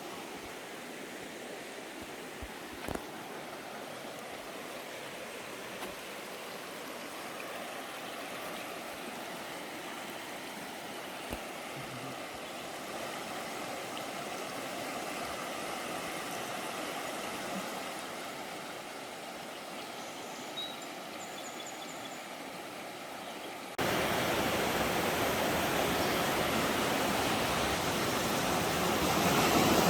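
Mountain creek rushing steadily over rocks. About three-quarters of the way through, the sound jumps abruptly to a much louder, fuller rush of water.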